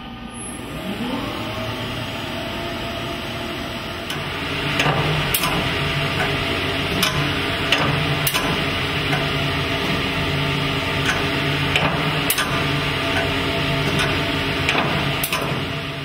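CNC machine tool machining a metal part. The spindle spins up with a rising whine, then runs steadily. From about four seconds in there is louder cutting noise with sharp irregular clicks.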